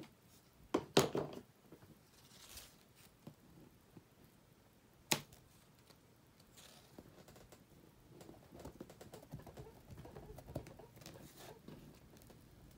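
Hand crafting sounds: a few knocks about a second in and a single sharp click about five seconds in, then soft rustling of satin ribbon being folded and wrapped around floral wire.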